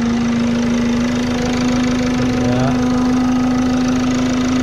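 Range Rover Evoque diesel engine idling with a loud, steady droning tone over the engine noise. The mechanic suspects a failed turbocharger, with lots of vibration in it.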